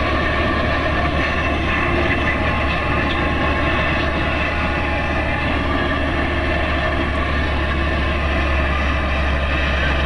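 IVECO truck's diesel engine droning steadily under road and wind noise, heard from inside the cab while cruising.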